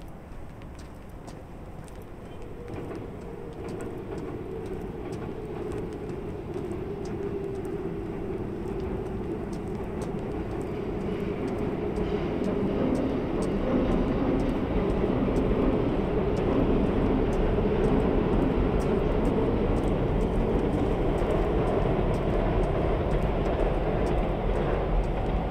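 Train running past, growing steadily louder over the first half and then holding a loud, steady rumble with a droning hum under it.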